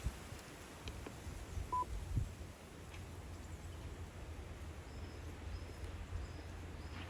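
Wind rumbling on the microphone, with faint, short bird calls now and then.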